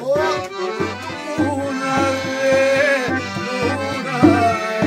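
Piano accordion playing a folk tune with no singing, its melody carried over a steady, regular bass-and-chord accompaniment.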